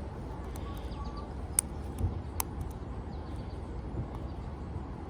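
A few sharp, isolated clicks from a pick and tension wrench working a small Pella window lock against its spring tension, over steady outdoor background noise with faint bird chirps.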